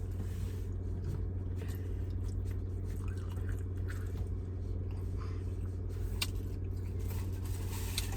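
Close-up chewing and biting while eating barbecue ribs, with small wet mouth clicks, over the steady low hum of an idling car engine.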